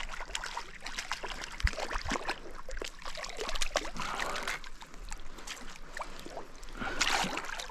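Water splashing and slapping in irregular bursts as a hooked fish thrashes at the surface while it is played in on a fly line.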